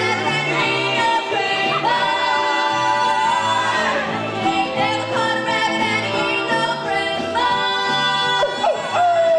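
Live musical-theatre singing: voices holding long notes in harmony over a band, with a walking bass line underneath. Near the end one note slides down in pitch.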